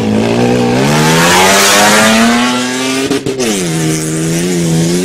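Toyota FJ Cruiser's V6 on an open, unsilenced exhaust, ear-splitting as it pulls away from a standing start. The revs climb for about three seconds, drop sharply at a gear change, then hold steadier.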